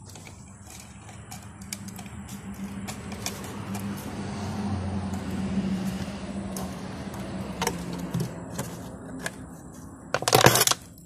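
A plastic drinks bottle crackling and snipping as it is cut with scissors, loudest in a short dense burst near the end. Underneath, a low steady hum swells and fades through the middle.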